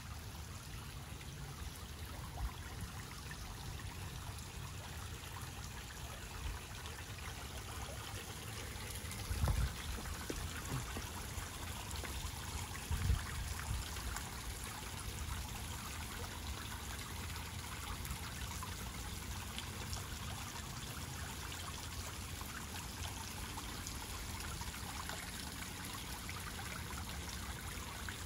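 Small pond fountain spraying water that patters and trickles steadily back onto the pond surface. A couple of brief low bumps come about nine and thirteen seconds in.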